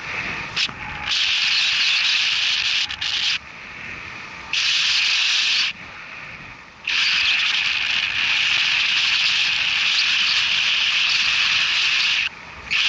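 Wind rushing over an action camera's microphone in paraglider flight: a loud, even hiss that drops away abruptly three times for about a second each.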